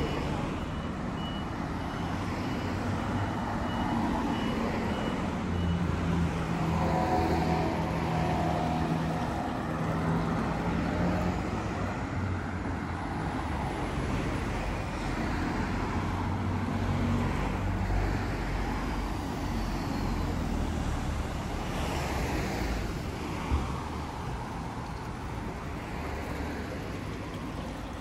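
Road traffic: vehicle engines running and passing, with a reversing alarm beeping over and over for the first several seconds. A single sharp knock sounds near the end.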